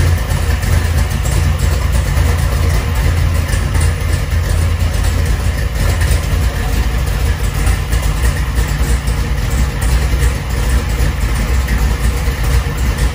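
V8 engine of a classic Corvette Sting Ray idling steadily.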